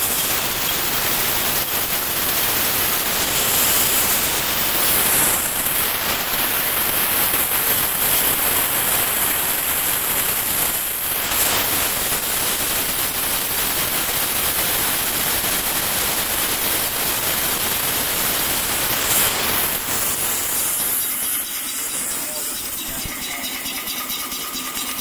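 Steady, loud hiss of steam from a Sirocco high-speed steam engine running on live steam from a small water-tube boiler, its exhaust blowing off in a continuous rush. There are a few brief louder gusts, and the hiss eases somewhat near the end.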